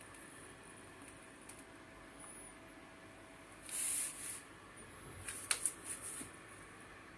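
A small motor driving 3D-printed gears on a stopcock valve: a short burst of gear noise just under four seconds in, then a few sharp clicks about a second and a half later.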